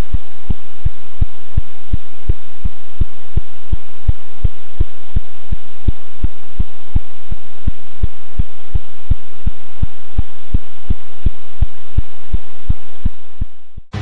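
Radio signal of pulsar B1933+16 turned into sound: a hiss of static with regular pulses, about three a second, one for each 0.359-second rotation of the neutron star.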